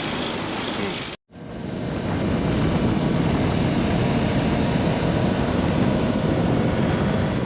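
Steady rush of wind and road noise from a motorcycle under way, broken by a brief cut to silence about a second in.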